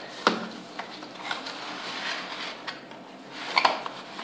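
Cardboard box being opened by hand: the card rustles and scrapes, with several sharp clicks and taps, the loudest about a quarter second in and a pair close together near the end.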